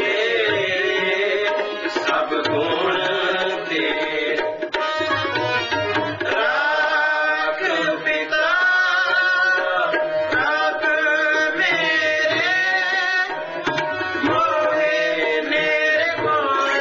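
Sikh shabad kirtan: hand-pumped harmoniums and tabla accompanying a sung Gurbani hymn, the tabla playing a steady rhythm under a wavering vocal and harmonium melody.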